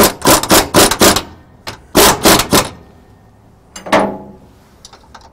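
Impact wrench hammering in short trigger bursts, snugging the lower shock-mount bolts of a motorhome's rear shock kit. There is a quick run of bursts at the start, another cluster about two seconds in and a last short one around four seconds in.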